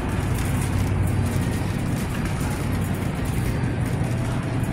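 Steady low hum and rumble of supermarket background noise, with no distinct events.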